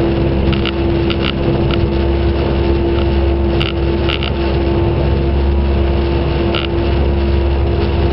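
A motorboat engine running steadily under way, heard on board as a loud, even drone with a deep hum. Brief high ticks sound several times over it.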